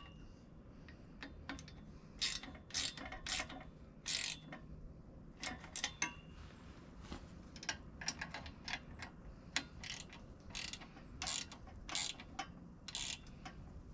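Socket ratchet clicking in short runs of strokes as a bolt is tightened, pausing between runs.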